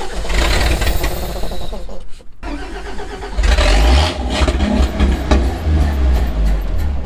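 1949 White WB-20 Super tow truck engine being cranked by its starter in two goes, with a short break about two seconds in; the second go is louder and heavier. The engine is cold and does not stay running.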